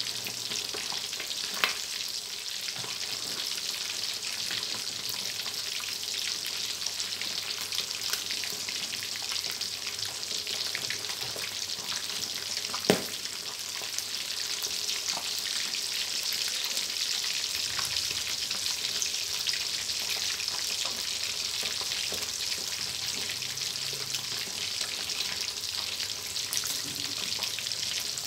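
Sun-dried red tilapia deep-frying in a wok of hot oil: a steady sizzle with a few sharp pops and crackles, one louder pop about halfway through.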